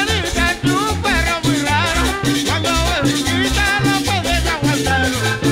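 Live guaracha band playing with a steady beat: button accordion, electric bass, hand drum and a metal güiro scraped in rhythm.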